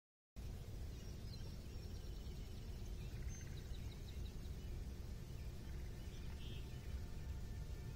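Steady low outdoor background rumble with faint bird chirps and calls scattered over it: a run of short high notes in the first few seconds and a quick chattering call later on.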